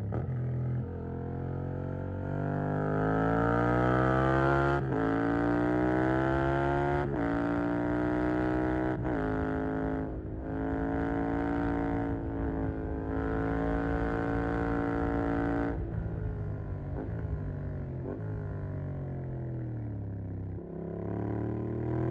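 Yamaha MT-07's parallel-twin engine through a Mivv GP Pro stainless exhaust, accelerating hard through several upshifts, its pitch climbing and then dropping at each shift. It then holds a steady pitch at speed. In the last few seconds it falls away under deceleration with quick blips on the downshifts, and pulls up again near the end.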